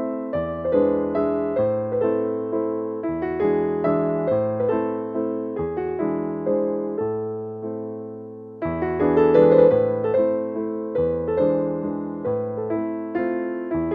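Background piano music: single notes and chords struck in a steady, gentle succession, fading away just before the middle and picking up again louder.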